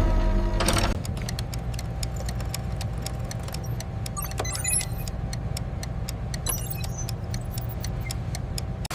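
Factory machinery running with a steady low hum, overlaid by a quick run of light metallic ticks and, twice, a brief clink or jingle of metal.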